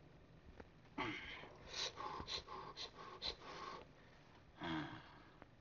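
A man's breathy gasps and hisses of pain, then a short groan about two-thirds of the way through. They are reactions to medicine stinging a fresh wound.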